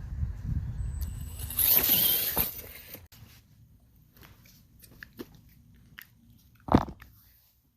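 Wind rumbling on the microphone, then a loud crunching burst about two seconds in, followed by a few scattered clicks and one sharp knock near the end.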